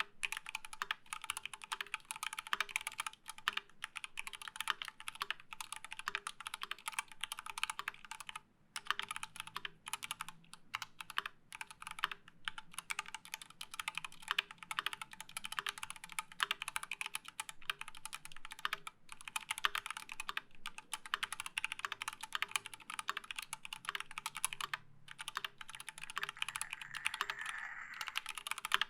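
Continuous typing on a Rama KOYU Tank mechanical keyboard with unlubed Everglide Coral Red switches, an integrated plate and GMK keycaps. It is a dense run of key clacks broken by a few short pauses.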